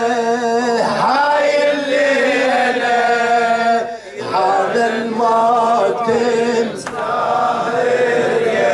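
Male voices chanting an Arabic Muharram lament (latmiya) over a microphone, in long held, wavering notes, with a brief break about four seconds in.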